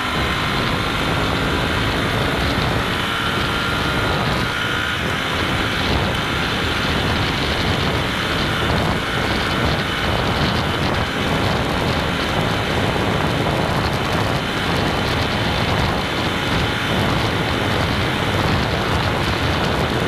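Royal Enfield Continental GT650's parallel-twin engine running steadily at full throttle near top speed, with heavy wind rush over the handlebar microphone.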